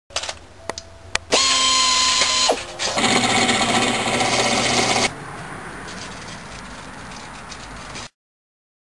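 Power tools running in separate short takes: a first run with a steady whine about a second and a half in, then a drill press boring through a thin stainless steel plate, the loudest part, for about two seconds. A quieter steady noise follows and then cuts off suddenly.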